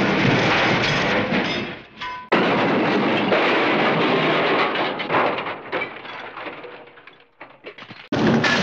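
Hanna-Barbera cartoon crash sound effects: a long clattering crash of smashing and tumbling debris dies off, a second crash starts abruptly and trails away over several seconds, and another begins near the end.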